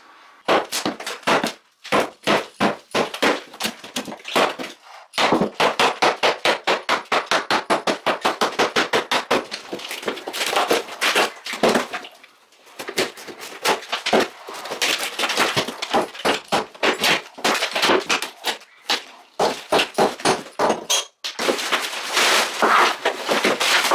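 Rapid hammer blows breaking out a section of drywall wall, several strikes a second in long runs with a few short pauses.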